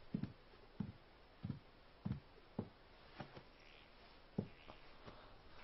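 Faint, slow footsteps on a floor: about eight soft thuds at uneven spacing, with a little faint rustling near the middle.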